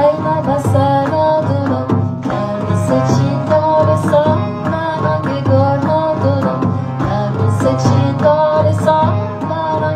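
A woman singing a Persian folk song in a wavering, ornamented melody, accompanied by a steady low beat on a large hand-held frame drum.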